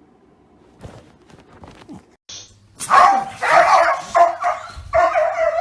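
A dog barking loudly in a run of calls that starts about three seconds in, after a few faint knocks.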